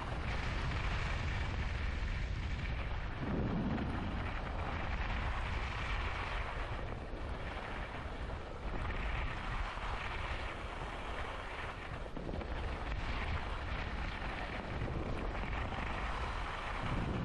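Wind buffeting the microphone during a downhill ski run, with the hiss and scrape of skis on the snow swelling and fading every couple of seconds.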